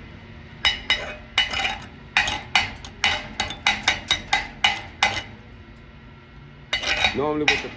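Chipping hammer striking the slag off a flux-core root weld on a steel plate: a string of sharp metallic taps, about three a second, that stop about five seconds in.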